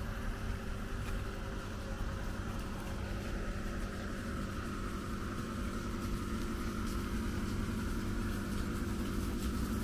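Steady mechanical hum with a few constant tones, like a motor or machine running without change.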